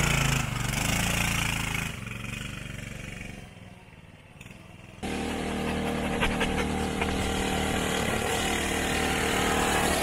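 Coleman CT200U-EX mini bike's 196 cc single-cylinder engine running as the bike pulls away, then fading over a few seconds. About five seconds in, after a sudden change, the engine is heard running steadily again.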